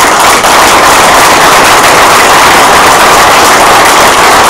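Loud applause from an audience of many people clapping together, steady and dense throughout.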